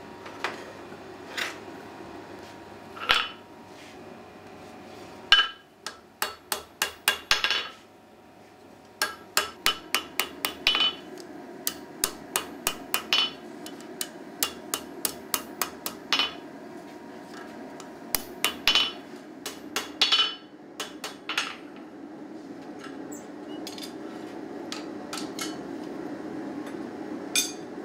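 Hand hammer striking hot steel on an anvil, forging a bar into tongs: a few single ringing blows, then quick runs of blows, then a pause with one last strike near the end. A steady low hum runs underneath.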